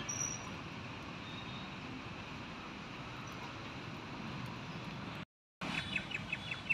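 Steady, quiet outdoor background hiss with no distinct event. It drops out completely for a moment about five seconds in, and a few quick, high chirps follow near the end.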